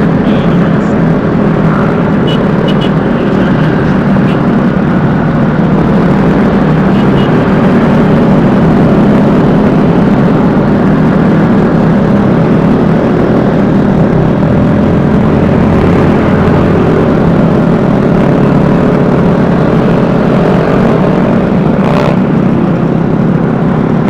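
Vespa S 125 scooter riding along at a steady cruise: the engine hum and road and wind rush, picked up close and loud by the rider's microphone. A short knock near the end.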